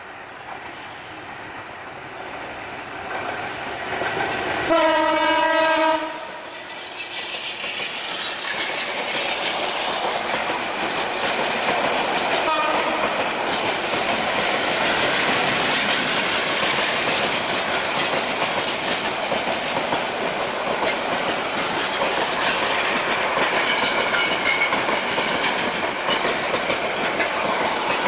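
EMD GT38ACL metre-gauge diesel-electric locomotive sounding one horn blast of just over a second, about five seconds in. Then the train's running noise builds and holds steady as the locomotive and coaches pass, with the clickety-clack of wheels over rail joints.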